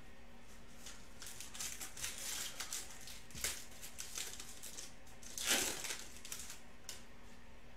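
Shiny foil wrapper of a Panini Prizm football card pack crinkling and tearing as it is pulled open by hand, in short scratchy bursts starting about a second in, with the loudest rip about five and a half seconds in.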